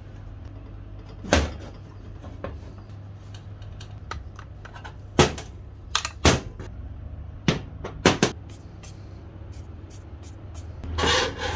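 Parts and tools being handled on a workbench: irregular sharp knocks and clinks, about seven louder ones, and a short rattling scrape near the end, over a steady low hum.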